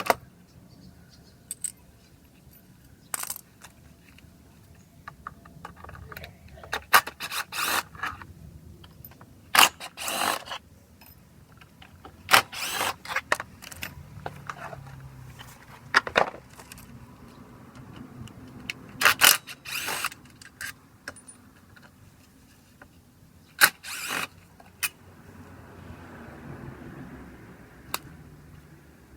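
Hand tools and small metal parts clinking and scraping in irregular bursts, as when a motorcycle drive-train cover is being taken apart.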